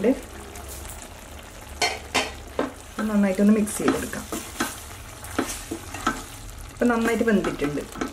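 Wooden spatula stirring chunky vegetables in a thick sambar masala in a stainless steel pot, scraping and tapping against the metal. Under it is the low sizzle of the simmering curry.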